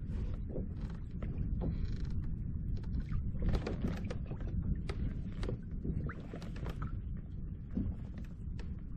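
Irregular creaks, clicks and knocks from a fishing kayak and its gear being handled, over a steady low rumble.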